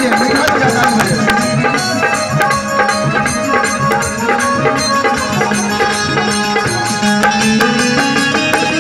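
Instrumental interlude of live Bhojpuri devotional music: harmoniums holding steady chords over quick, continuous hand-drum strokes.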